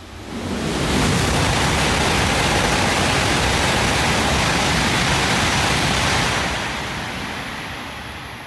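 Coupled E5 and E6 series Shinkansen passing through the station without stopping: a loud, even rushing noise builds over about a second, holds steady for about five seconds as the cars go by, then fades as the tail passes. The pass seemed slow for a through train, as if under a speed restriction.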